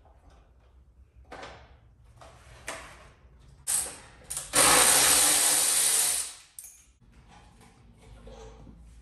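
Shop work on a Harley-Davidson Softail being stripped: scattered knocks and clinks of tools and parts. About halfway through comes a loud, hissing burst of a shop tool that lasts nearly two seconds.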